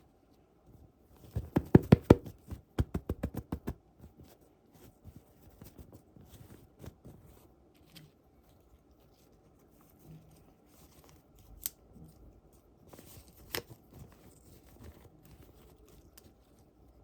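Hands working open toy packaging: a quick run of sharp clicks early on, then scattered soft taps and rustles, with two sharper clicks near the end.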